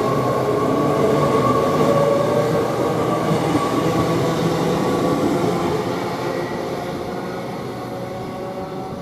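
Avanti West Coast Class 807 electric train running past at speed: steady rail noise with a held motor whine, fading away over the last few seconds as it moves off.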